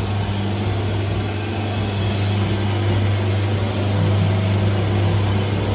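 Motor of a soybean washing and starter-mixing machine for tempeh, running steadily with a strong low hum.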